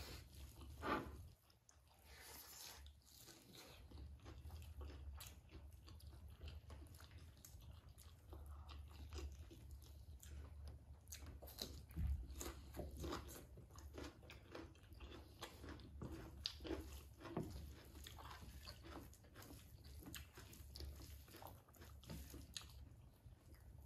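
Close-up eating sounds of two people eating by hand: quiet chewing, wet mouth and lip sounds, and fingers working rice and pork curry on plates, with occasional crunchy bites of fried cauliflower pakoras. A low steady hum runs underneath.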